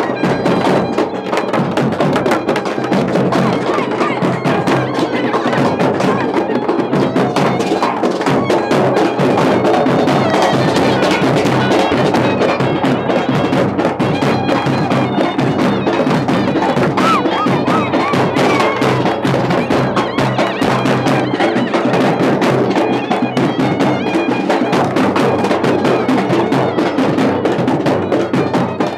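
Thappu (parai) frame drums beaten hard and fast by a drum band, in dense continuous drumming.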